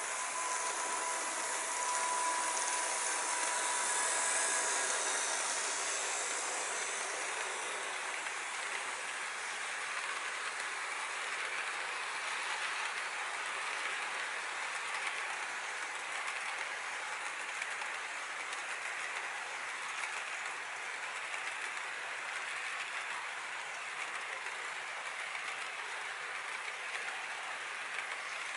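Model freight train running past on sectional track. The electric motors of the model EMD diesel locomotives whine for the first several seconds, fading as they pass. Then comes a steady rattle and clicking of the freight cars' wheels rolling over the rails and track joints.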